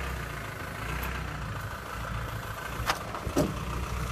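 Engine of a small loader running at a steady idle, a low even hum. Two short clicks sound about three seconds in.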